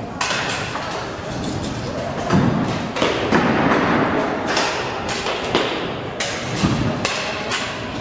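Kick scooters rolling and clattering on skatepark ramps, with many thumps and knocks as decks and wheels hit the ramp surface, and low rolling rumbles a couple of times.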